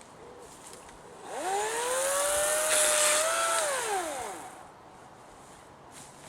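Battery-powered electric chainsaw squeezed up to speed: the motor and chain whine rises in pitch, holds for about two seconds with a hiss on top, then winds down and stops.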